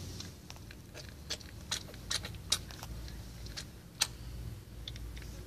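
Irregular wet clicks and smacks from the mouths of a mother cat and her newborn kittens, with a few sharper ticks about two and a half and four seconds in.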